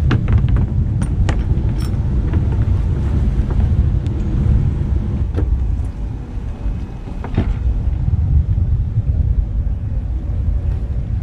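Steady low rumble, with a few sharp knocks and clicks of gear being handled on the sailboat's bow, several in the first two seconds and single ones about five and seven seconds in.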